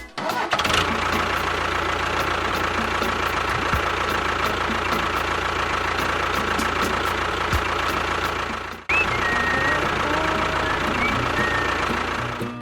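Small motor of a DIY miniature tractor running steadily with a constant whine. It cuts out briefly for a split second about nine seconds in, then carries on.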